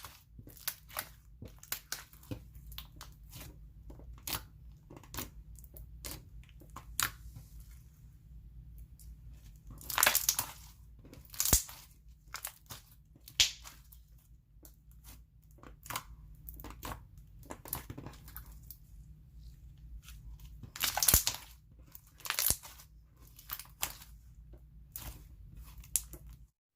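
Clear glue slime being stretched and squished by hand, giving irregular sharp pops and clicks as air bubbles burst in it, with a few louder clusters of pops.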